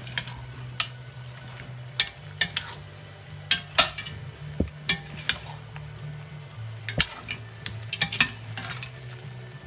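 A metal spoon stirring and turning a thick goat and squash stew in an enamelled pot, with a dozen or so irregular knocks and scrapes against the pot, the stew sizzling underneath.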